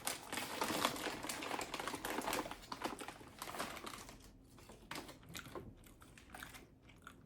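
Close-miked chewing of a toasted tuna melt sandwich: dense, crisp crackling and clicking for about the first four seconds, then sparser clicks.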